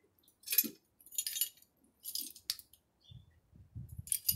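Harley Evo cylinder head bolts clinking as they are handled and set down: a few short metallic clinks, with a low rustle of handling near the end.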